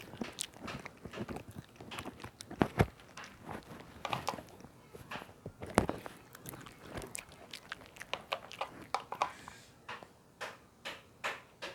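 A dog eating, chewing and crunching its food with irregular sharp bites.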